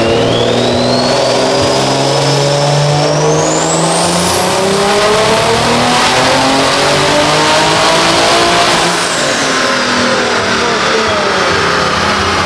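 Single-turbo car engine making a full-throttle pull on a chassis dyno: the engine note climbs steadily with a high whine rising above it for about nine seconds, then the throttle closes and the revs fall away.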